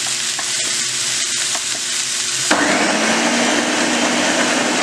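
A Ninja Professional 1000 W countertop blender switches on about halfway through and runs steadily with a constant hum, blending chiles, tomatoes and onion into a thick salsa. Before it starts, a steady sizzle with small clicks is heard.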